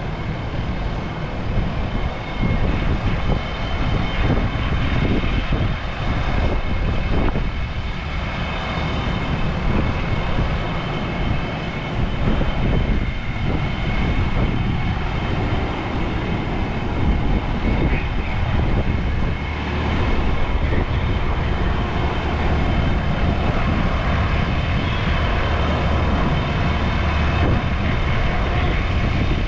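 Fire apparatus engine running steadily, a constant mechanical drone with faint steady high tones above it.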